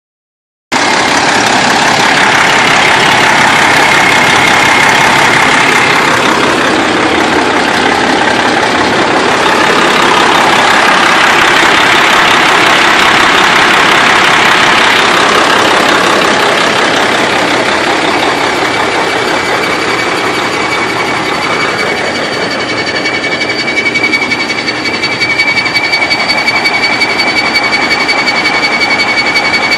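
2005 Freightliner Columbia semi truck's diesel engine idling roughly: the truck runs really rough and has no power. A thin, steady high whine joins in about two-thirds of the way through.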